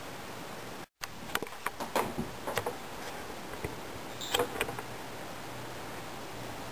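The sound cuts out for an instant about a second in, then a run of small, sharp clicks and knocks for about three seconds, over a steady hiss.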